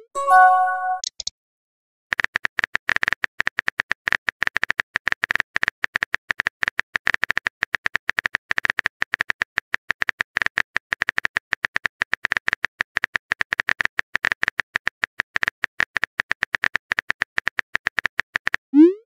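Texting-app sound effects: a short chime of a few clear tones as a message is sent, then rapid keyboard-typing clicks, many a second, from about two seconds in until just before the end, where a rising swoop begins.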